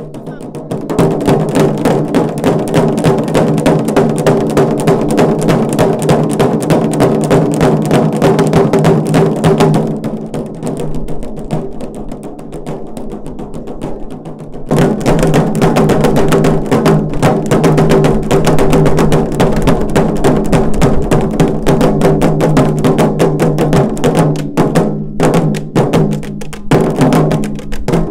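A group of large Zulu cowhide-headed drums beaten with sticks in a fast, dense rhythm. The drumming eases off to a quieter passage about ten seconds in and comes back at full strength about fifteen seconds in.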